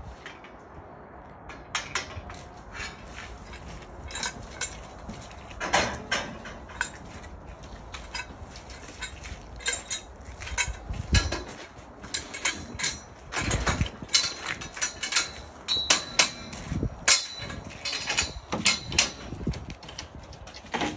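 Irregular metallic clanks and knocks of scaffold tubes, frames and fittings being lifted and hooked into place.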